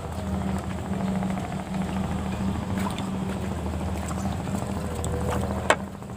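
A boat engine runs steadily at an even speed, with one sharp click near the end.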